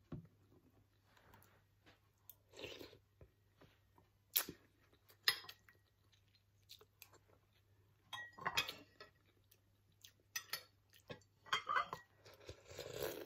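Quiet eating sounds: a metal spoon clinking now and then against a ceramic soup bowl, and soft chewing of chicken noodle soup.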